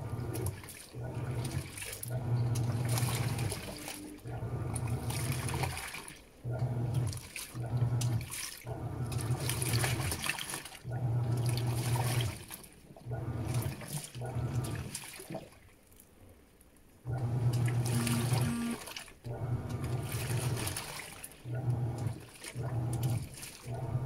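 Panasonic 16 kg top-load washing machine agitating a load of jeans in soapy water at a low water level: the drive motor hums in strokes of half a second to two seconds as the pulsator swings back and forth, with water sloshing throughout. There is a pause of about a second and a half just past the middle.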